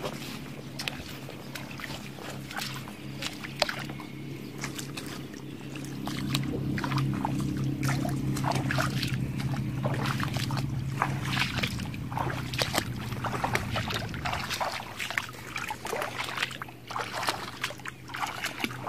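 Bare feet splashing and sloshing step after step through shallow water and wet grass, over a steady low hum like a distant engine.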